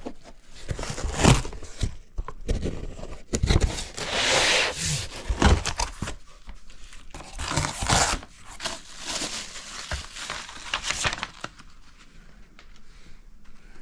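Cardboard shipping box being opened and unpacked by hand: cardboard and packing paper rustling, bubble wrap crinkling, and scattered knocks. The handling goes quieter over the last couple of seconds.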